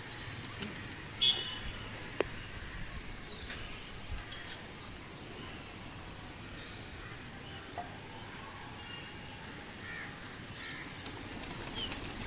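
Steady outdoor background noise with a few faint chirps and a sharp click about a second in. Near the end, a louder fluttering of pigeons' wings flapping.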